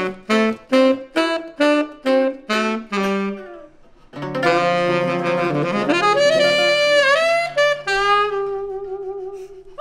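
Saxophone with acoustic guitar ending a funk song: about nine short punched notes, a brief pause, then a long held final note with a bend in the middle that fades away near the end.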